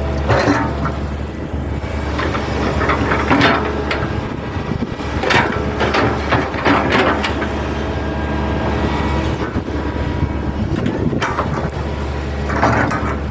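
Hitachi hydraulic excavator's diesel engine running steadily, with irregular clanks and knocks from the bucket and arm at work, several sharp ones spread through.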